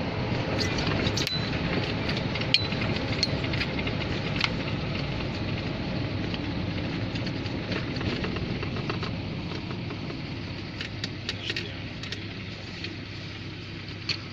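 Cab noise of a GAZelle camper van driving along a city street: steady engine and tyre noise with scattered light rattles and clicks, easing off a little in the last few seconds.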